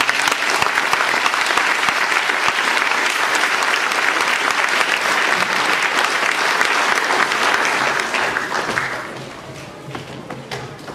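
Audience applauding in a concert hall, a dense steady clapping that fades away about nine seconds in, leaving quieter murmuring.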